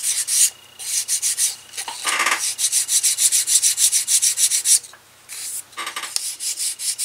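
Sandpaper on a sheepskin-covered leather handle: the burnished edge is hand-sanded with quick back-and-forth scratchy strokes to even it out. The strokes come in runs, broken by short pauses about half a second in and about five seconds in.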